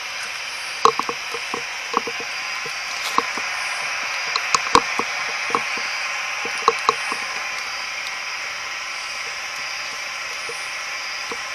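Ghost box radio hissing with steady static. A scatter of sharp clicks and knocks sounds over the first seven seconds or so, then only the hiss remains.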